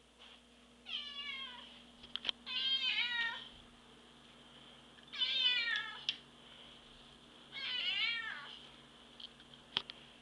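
Domestic cat meowing four times, each meow drawn out and falling in pitch.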